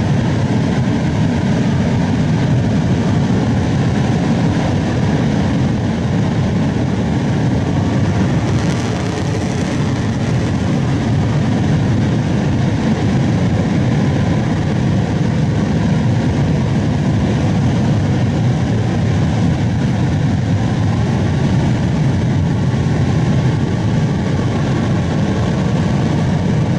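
Epsilon S solid-fuel rocket motor firing on a horizontal test stand: a loud, steady, low rumbling noise with no break, some thirty to fifty-five seconds into its burn.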